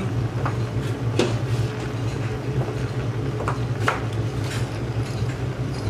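Steady low kitchen hum with about four light knocks as slices of lemon go into a stockpot of fish bones and vegetables.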